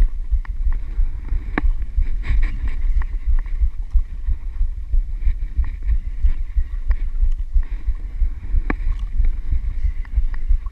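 Wind buffeting an action camera's microphone at sea: a loud, uneven low rumble, with a few sharp clicks on top.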